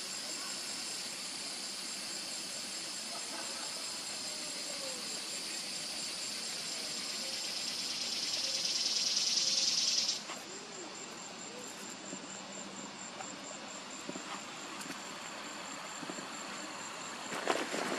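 Insects buzzing: a steady high buzz that swells louder and cuts off suddenly about ten seconds in, over a faint, fast, high pulsing trill that runs on throughout. A few soft knocks near the end.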